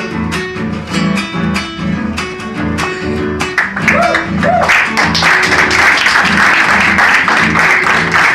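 Acoustic guitar music: plucked notes over a steady bass line, growing fuller and louder about four seconds in.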